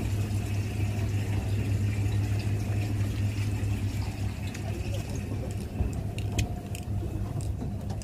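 Fishing boat's engine running steadily with a low drone and a hiss, with a few light clicks and knocks in the second half as a fish is brought aboard.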